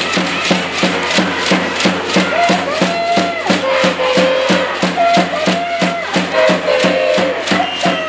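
A cheering section chanting in unison over a fast, steady drum beat of about four strokes a second.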